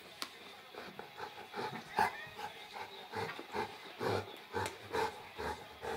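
Saint Bernard making short, repeated grunting play noises while play-fighting with a cat, about two or three a second, the loudest about two seconds in.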